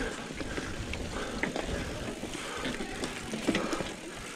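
Mountain bike riding fast over a dirt singletrack: steady tyre and trail noise with scattered clicks and rattles from the bike.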